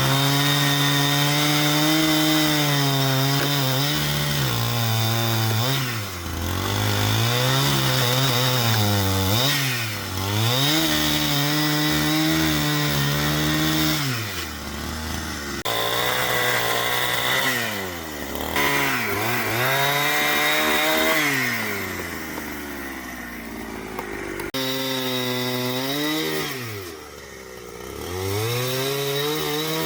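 Two-stroke chainsaw running at high revs, cutting wood, its engine pitch dipping and climbing back several times.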